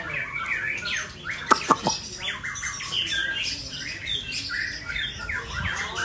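Many caged songbirds singing and calling at once, a dense chorus of overlapping chirps and song phrases, with three sharp clicks about a second and a half in.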